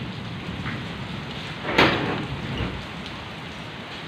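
Steady rain hissing on open ground, with one brief, sharp, louder burst of noise a little under two seconds in.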